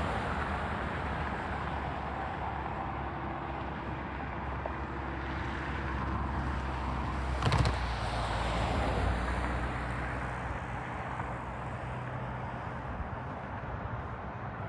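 Freight train rolling past: a steady rumble and rush of steel wheels on rail with a low, even drone underneath, and one sharp knock about seven and a half seconds in.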